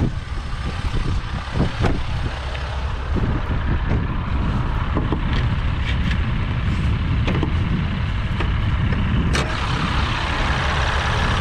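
Ram 1500's 3.0-litre EcoDiesel V6 idling, with a few clicks and knocks; a sharp click about nine seconds in as the hood goes up, after which the engine is heard louder and clearer.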